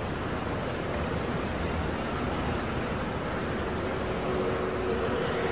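Steady rushing street noise from road traffic, with wind buffeting the phone microphone and adding an uneven low rumble.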